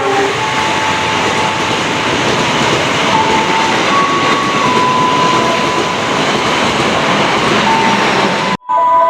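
Train running past at close range: a steady loud rumble and rush of wheels on the rails, with thin high squeals coming and going. The sound cuts out abruptly for a moment near the end.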